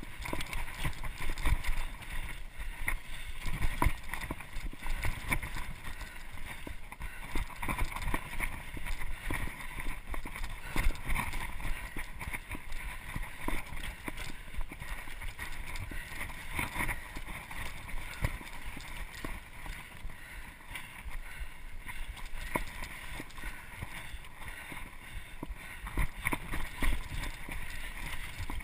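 Mountain bike running fast down a dirt singletrack: tyres on the trail with constant rattling and short knocks from the bike over roots and bumps, and wind buffeting the microphone.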